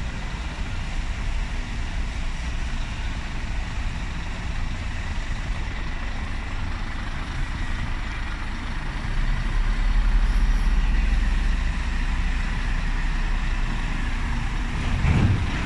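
Scania P 450 fire truck's 13-litre straight-six diesel engine running as the truck drives slowly past, its low rumble growing louder about two-thirds of the way through. A short burst of noise comes near the end.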